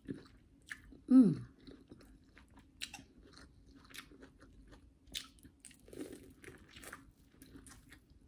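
A person biting kernels off an ear of corn on the cob and chewing close to the microphone, with scattered sharp crunchy clicks and wet chewing. About a second in comes a short hum that falls in pitch, louder than the chewing.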